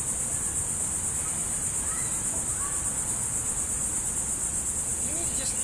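Steady high-pitched chorus of insects, such as crickets or cicadas, keeping up a continuous shrill drone.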